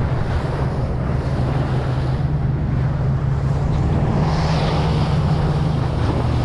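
Fishing boat's engine running steadily under way, with wind buffeting the microphone and water rushing past the hull. A brief hiss rises about four seconds in.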